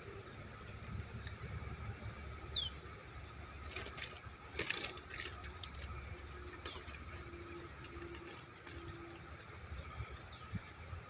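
Outdoor ambience with a steady low rumble. A single short falling bird chirp comes about two and a half seconds in, and a few sharp clicks and knocks follow a couple of seconds later.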